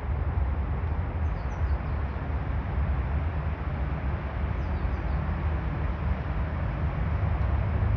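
Outdoor ambience: a steady deep rumble with hiss, with a few faint high bird chirps about two seconds in and again near the middle.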